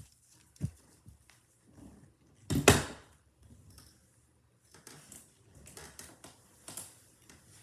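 Scattered light knocks and rustling, with one loud thump about two and a half seconds in.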